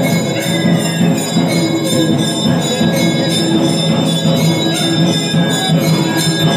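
Background music with a steady beat and jingling bells.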